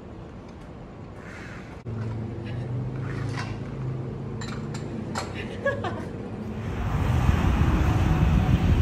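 A low steady hum, then a steady low drone with a few short, sharp sounds. About seven seconds in, louder street traffic with running engines takes over.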